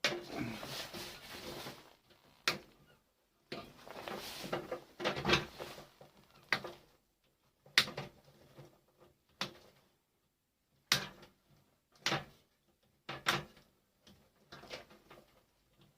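Things being shifted about and set down on a cluttered workbench: about a dozen sharp knocks and clatters, with stretches of rustling and scraping between them.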